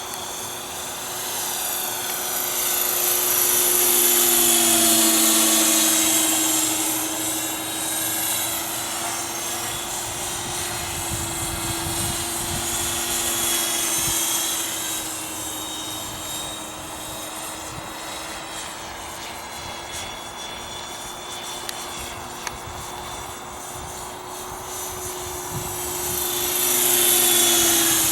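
500-size RC scale Little Bird helicopter in flight: a steady whine of its rotors and drive over a hiss, growing louder as it passes close about four seconds in and again near the end.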